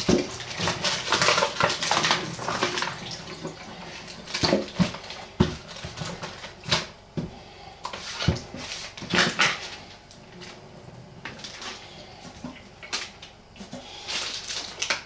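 Dishes and utensils clattering at a kitchen counter: irregular knocks, clinks and scrapes as they are handled.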